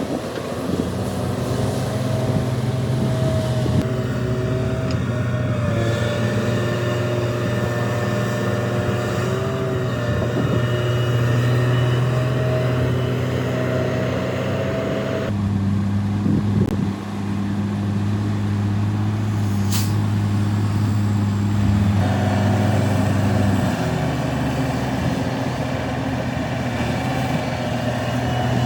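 Heavy diesel earthmoving machinery, a large excavator and dump trucks, running steadily with a low engine note that shifts in pitch a few times.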